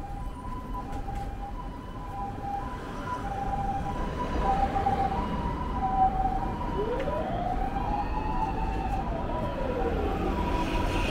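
Ambulance siren sounding its two-tone high-low pattern, the 'pee-po' of Japanese ambulances, switching between a high and a low note about every two-thirds of a second over street traffic. Around the middle a separate tone slides up and then back down over a few seconds.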